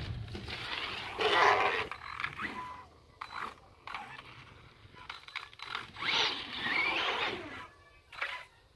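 Electric RC truck accelerating up a plywood ramp in two bursts of motor and tyre scrub, about a second in and again past the middle, with a few sharp knocks as the truck hits the wood.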